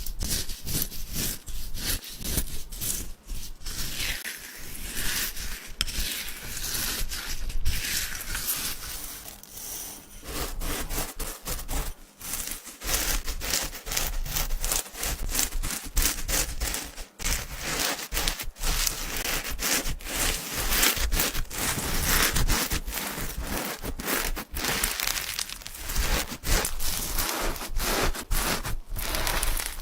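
Slime being squished and worked by hand, a dense run of small crackling clicks and pops over a rubbing, rustling noise.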